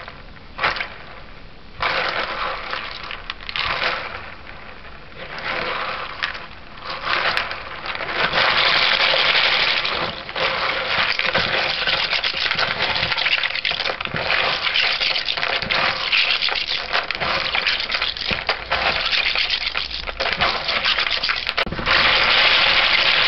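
Dried red kidney beans swished and rubbed by hand in water in a bowl, the beans clattering and the water sloshing. The strokes come stop-start at first, then run on fuller and louder from about a third of the way in, loudest near the end.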